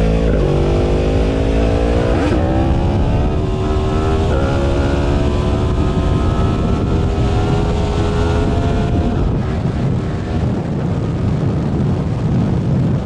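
Yamaha MT-10's crossplane inline-four with an Akrapovič exhaust accelerating hard: rising in pitch and dropping at three quick upshifts about two seconds apart, then pulling on in a high gear. Wind noise builds with speed and drowns most of the engine near the end.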